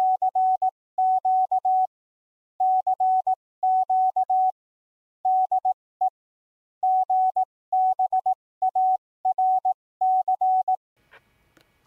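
Morse code sent as a single steady beep tone, keyed on and off in groups of short and long elements with pauses between the groups. The beeping stops about a second before the end, leaving faint background noise.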